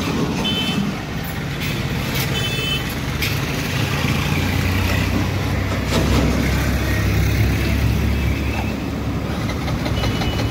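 A motor vehicle's engine running steadily at low revs, growing louder about halfway through, with two short high beeps near the start.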